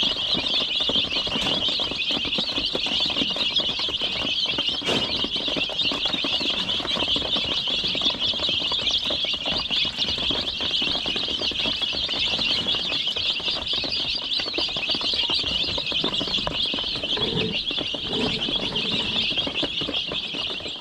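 A crowd of young chicks peeping continuously, a dense, steady chorus of high cheeps.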